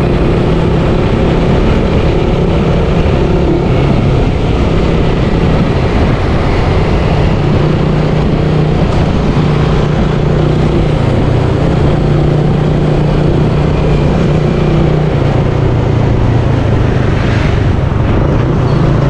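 Motorcycle engine running at a steady cruise, its hum shifting slightly in pitch a few times, under a continuous rush of wind and road noise.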